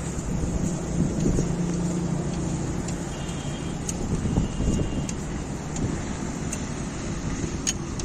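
Vehicle engine running with a steady low hum, with a few light clicks along the way.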